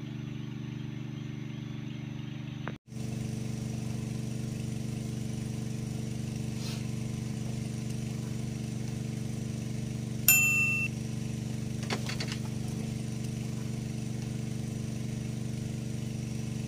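A steady low motor hum with a few fixed tones, and a single bright metallic ding about ten seconds in that rings for a moment.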